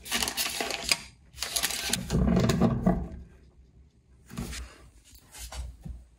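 Wrapped hotel toiletry packets rustling and crinkling as a hand picks through them, in two loud bursts over the first three seconds, followed by a few softer handling rustles.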